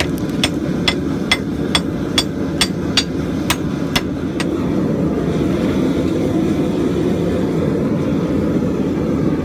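Blacksmith's hand hammer striking welding-hot steel on the anvil, about ten blows roughly two a second, pulling the edges of a freshly forge-welded stump anvil block over to square. The blows stop about four and a half seconds in, and a steady low rumble runs underneath throughout.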